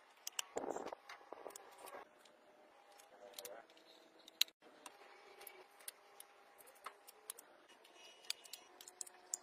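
Scattered light clicks and taps as hands open and handle the hinged panels of a homemade miniature excavator.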